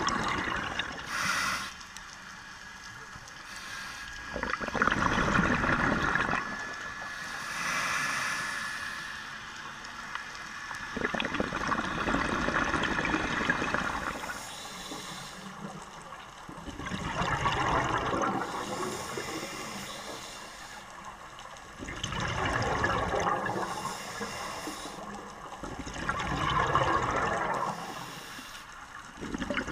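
Scuba diver breathing through a regulator underwater: a thin hiss on each inhale, then a louder rush of exhaled bubbles, in a slow cycle of about one breath every five seconds.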